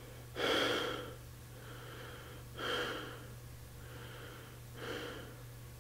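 A man breathing audibly three times during a pause in his talk, each breath under a second long and each quieter than the one before, over a faint steady low hum.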